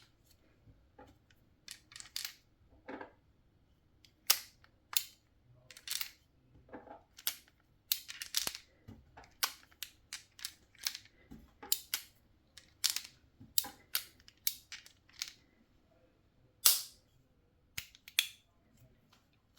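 Irregular sharp metallic clicks and ticks from loading a Colt Peacemaker air revolver: steel BBs pressed into the backs of its cartridge shells and the shells handled into the cylinder, a click every half second or so with short pauses.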